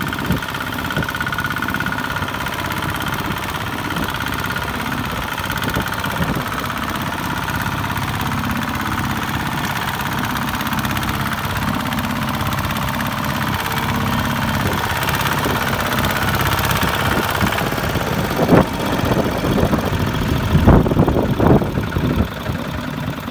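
Kubota ZT155 walking tractor's single-cylinder diesel engine running steadily under load as it drags a loaded trailer through a muddy rice field, with a few louder, uneven surges near the end as the drive wheel churns through deep mud.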